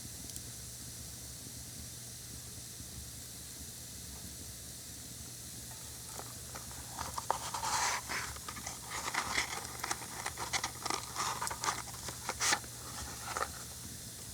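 Matches crackling and scratching as they are struck and burn: a dense run of sharp clicks and short scratchy bursts that begins about halfway through and lasts several seconds. Before it there is only a faint steady hiss.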